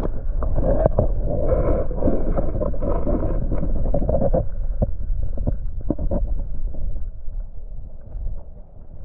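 River water sloshing and rumbling, heard muffled by a camera held underwater, with scattered sharp knocks. It is loudest in the first four and a half seconds and dies down over the last two.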